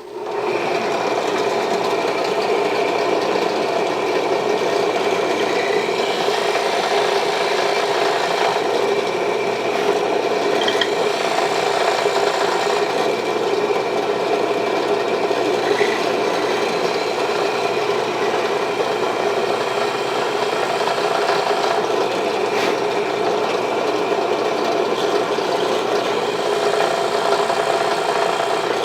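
Electric drill starting up, then running steadily with its bit cutting into the wooden sword handle to deepen the hole for a shark-tooth insert.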